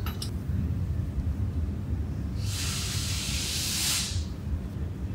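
An aerosol cleaner can spraying in one hiss of about a second and a half, over a steady low hum. It is spraying while old grease is cleaned out of a mud motor's lower unit housing.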